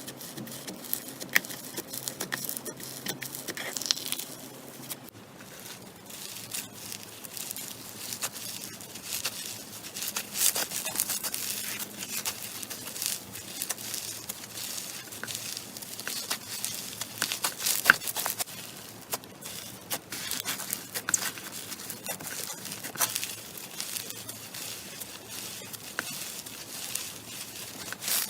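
Slime being squeezed and kneaded by hand, making a busy run of small sticky clicks, pops and crackles.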